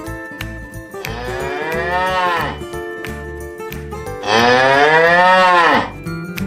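Cow mooing: two long moos, the second louder, each falling in pitch as it ends.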